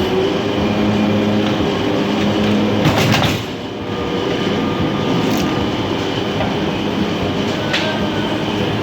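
Automatic krupuk (cracker) making machine running with a steady mechanical rumble and clatter, with a sharper rattling burst about three seconds in.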